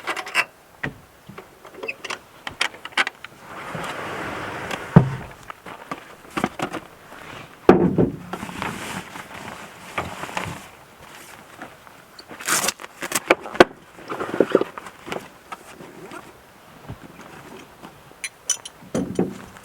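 Camping gear and tent parts being handled during rooftop tent setup: scattered clicks, knocks and rustling, with louder knocks about five and eight seconds in.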